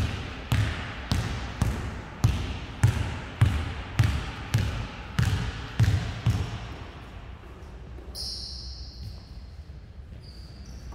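A basketball being dribbled on a sports hall floor, nearly two bounces a second, each followed by the hall's echo, stopping about six seconds in. After that come a few short high squeaks of sneakers on the floor.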